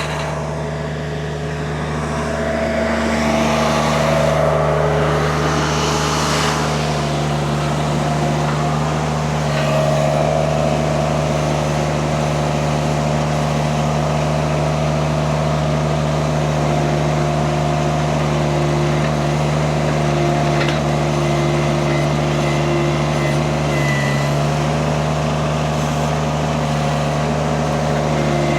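Mini skid steer's engine running steadily, with a brief rise in hiss a few seconds in.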